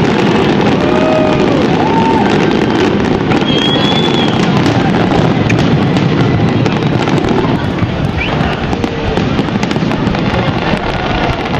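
Fireworks display: dense, continuous crackling and popping of exploding shells, with a few short whistling tones.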